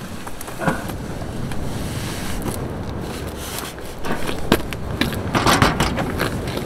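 Wind buffeting the microphone, with scattered knocks and a clatter from about four and a half seconds in as a cooler box is lifted out of a car toward an aluminium carry cart.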